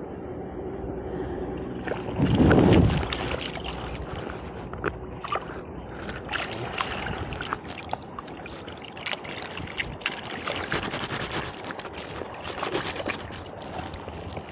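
Plastic bag crinkling and rustling as a salmon is handled into it, with water sloshing and trickling around the fish. A loud, low, muffled bump about two seconds in.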